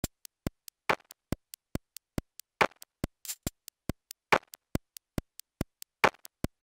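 Sharp, even ticking like a clock, about four to five ticks a second, with a louder hissing hit every second or two, laid down as a rhythmic soundtrack effect.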